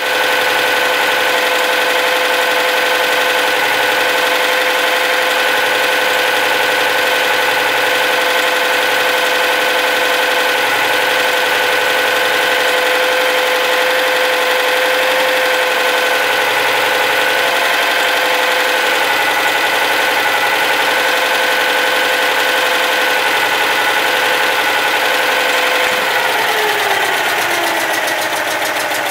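Citroën Dyane 6's air-cooled 602 cc flat-twin engine running at a steady speed, then slowing down near the end. It makes a noise that the owner wonders may be rocker-arm (valve gear) clatter.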